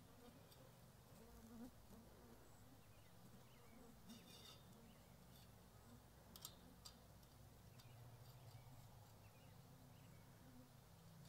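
Near silence: a faint insect buzz comes and goes close by, with a few light clicks of fence wire being twisted by hand about four and six seconds in.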